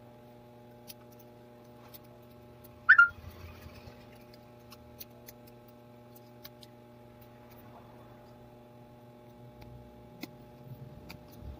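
Light clicks and taps of small parts and tools being handled on a phone-repair bench, over a steady electrical hum. About three seconds in there is one loud, short click.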